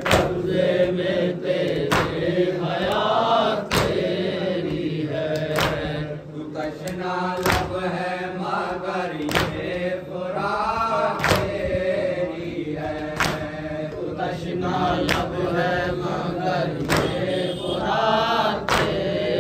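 A noha (Urdu lament) chanted by a lead reciter and a chorus of men, with the gathering striking their chests in unison (matam) about once every two seconds, a sharp slap on each beat.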